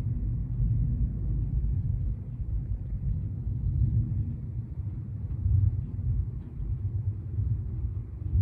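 Gusty wind buffeting the microphone: a low rumble that swells and eases with each gust.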